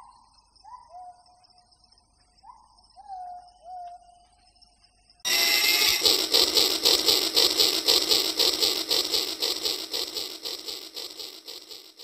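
Battery-powered toy steam locomotive and its plastic wagons running along plastic track: a dense, rapidly pulsing clatter that starts suddenly about five seconds in and fades slightly toward the end. Before it, only a few faint high chirps.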